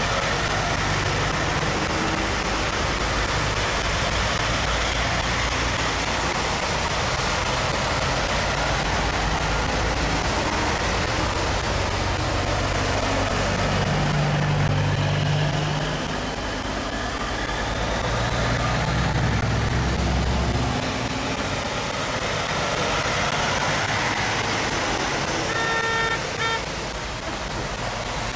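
A line of semi-truck tractors passing one after another on a wet road: diesel engines running low and tyres hissing on the wet asphalt. A brief horn toot sounds near the end.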